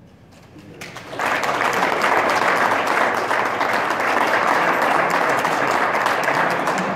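Audience applause that breaks out about a second in and carries on as steady clapping.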